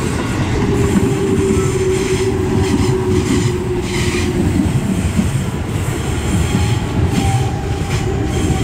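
JR 205 series electric commuter train passing close by: a steady rumble of wheels on rail with clacks over the rail joints. A steady tone runs through the first half, and a slowly falling tone comes in from about six seconds in.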